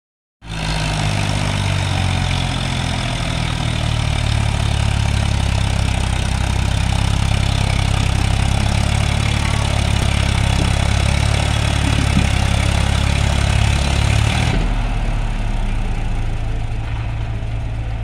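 Diesel engine of a Swaraj tractor running steadily as it slowly pulls a trolley loaded with soil. About fourteen seconds in, the hiss above the engine note drops away suddenly and the engine note changes.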